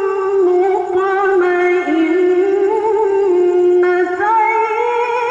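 A young woman reciting the Quran in the melodic tilawah style into a microphone, holding long ornamented notes that waver and slide in pitch, with the melody stepping up near the end.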